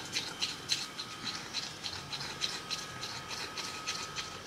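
Scratch card being scratched off in short, rhythmic rasping strokes, about three a second.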